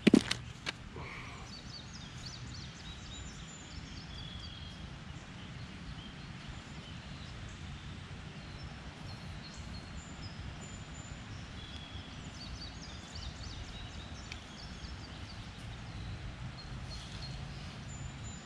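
Creekside outdoor ambience: songbirds chirping in short calls and trills over a steady low rumble. A few sharp knocks sound right at the start.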